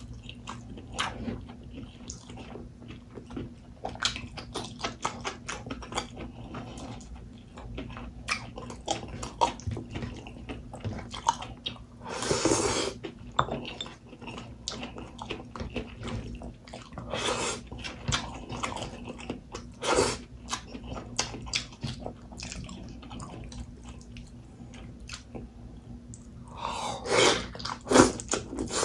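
Close-miked eating by hand: chewing and lip smacking of rice and pork, with many small wet mouth clicks and a few longer, louder mouth noises.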